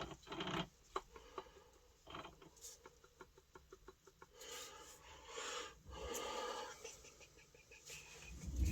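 Faint clicks, rattles and scraping of metal parts being handled on a split differential being stripped, with a quick run of small ticks a little before halfway.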